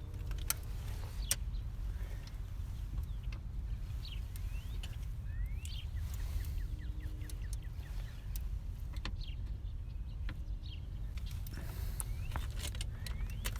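Scattered light clicks and metallic taps of hand tools as a fusible link block is bolted down in a car's engine bay, with a short run of quick ratchet-like ticks partway through. Under them is a steady low background rumble, and there are a few short rising chirps.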